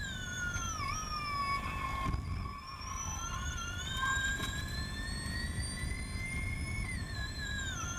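Formula E car's electric drivetrain whining from onboard. The whine falls in pitch under braking, rises steadily for about five seconds as the car accelerates, and drops again near the end, over a low rumble.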